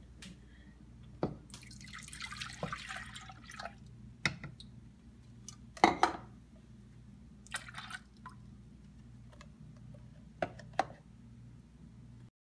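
Skim milk poured from a measuring cup into a saucepan: a splashing pour of about two seconds. Several sharp knocks follow, the loudest about six seconds in, over a faint steady low hum.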